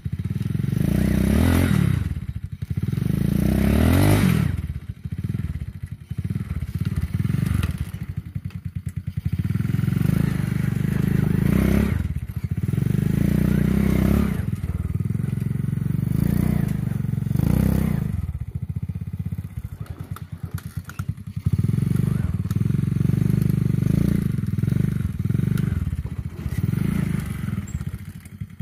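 Homemade ATV's old motorcycle engine running, revving up and easing off again and again.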